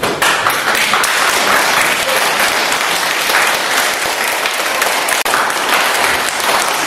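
Audience of children applauding: dense clapping breaks out suddenly at the start and goes on steadily.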